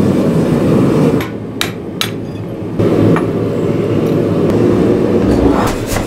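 Power hammer running and striking in rapid, continuous blows. It eases off for a moment about a second in, where a couple of sharp metallic clanks stand out, then runs on loudly.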